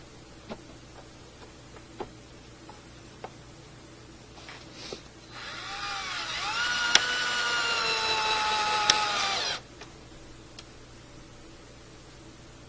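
Black & Decker cordless drill driving a screw into wood: the motor whine rises as it spins up, holds steady for about four seconds, then cuts off suddenly. A few light clicks and knocks of handling come before it.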